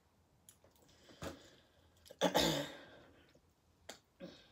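A woman's short wordless vocal sound about two seconds in, a brief sharp onset that trails off, with a smaller one near the end and a few faint clicks in between.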